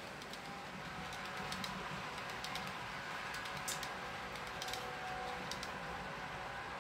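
H0-scale model trains running on the layout: a steady rolling hiss with irregular sharp clicks of the small wheels passing over rail joints and points.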